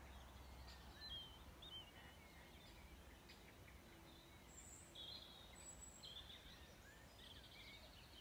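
Faint outdoor ambience of small birds chirping and trilling here and there, with a short run of trills about five to seven and a half seconds in, over a low steady hum.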